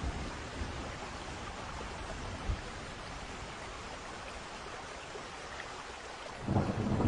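Steady hiss of rain during a thunderstorm, with a short low thump about two and a half seconds in. Near the end a loud low rumble of thunder sets in suddenly and keeps going.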